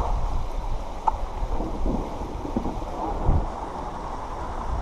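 Wind buffeting the microphone in a low rumble over a steady rushing noise of flowing creek water.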